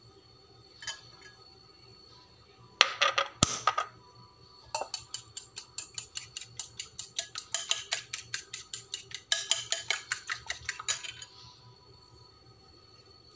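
Metal fork whisking French toast egg batter in a white bowl, clinking quickly against the bowl's side at about six strokes a second for several seconds. A few louder knocks come about three seconds in.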